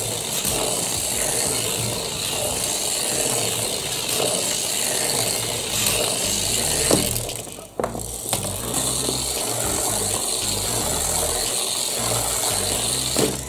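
Small electric motor and gear drive inside a cardboard racing-game box running steadily, a continuous mechanical whir as it carries the toy car around the track. It dips briefly a little past the middle.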